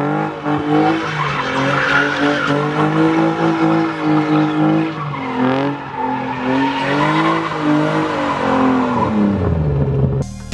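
BMW E30 sedan drifting: the engine is held at high revs that rise and fall while the rear tyres skid and squeal on the asphalt. The revs dip briefly about halfway through, then fall away steeply near the end.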